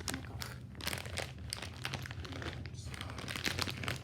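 Packaging bag crinkling and rustling in irregular crackles as it is handled and opened to get the clay out.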